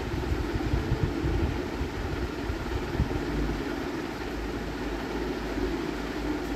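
Steady mechanical hum, with a spatula stirring and scraping thick rose petal jam around a steel pot.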